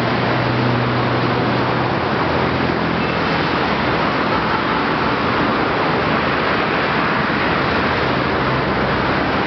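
Steady road-traffic noise, with a low engine hum from a passing vehicle in the first two seconds and again near the end.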